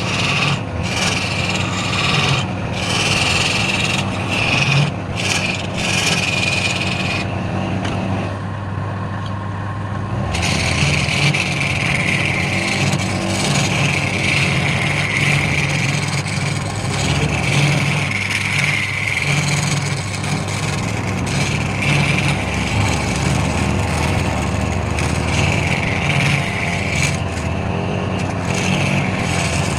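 Wood lathe motor running steadily while a turning tool scrapes and cuts the spinning wood in passes, with the cutting noise stopping for a few seconds about a quarter of the way in before resuming.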